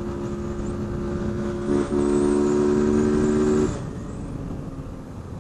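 Honda CG 160 Fan single-cylinder four-stroke engine running with its airbox snorkel (mangote) removed, so its intake noise is exposed. The throttle is opened a little under two seconds in and held, giving a louder, higher engine note for about two seconds, then eased off.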